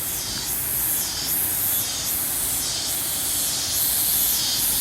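Cicadas calling in chorus: a loud, high buzzing that swells and fades roughly once a second, over a steady lower hiss.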